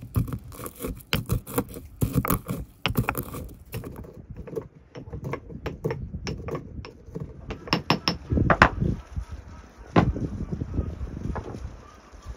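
Stone pestle striking and grinding in a marble mortar: quick clicking strokes for the first few seconds, then slower, heavier knocks.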